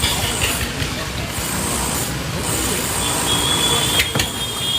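Steady vehicle and machinery noise, with a thin high-pitched squeal starting about three seconds in and a sharp knock about four seconds in.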